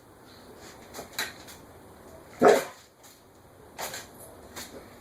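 A dog giving one short, loud bark about halfway through, with a softer short sound from it a little later.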